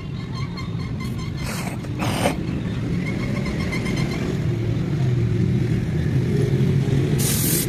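An engine running steadily, growing gradually louder, with short bursts of hiss about one and a half seconds in, about two seconds in, and near the end.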